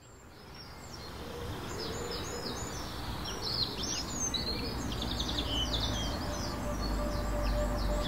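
Several small birds chirping and singing in quick, varied phrases over a low, steady rural background noise, fading in from near silence over the first couple of seconds.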